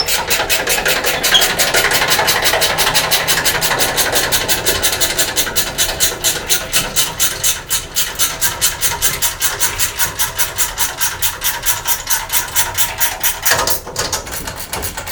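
Ratchet wrench clicking in a fast, even rhythm of about seven clicks a second as a fastener is worked loose, stopping about a second and a half before the end.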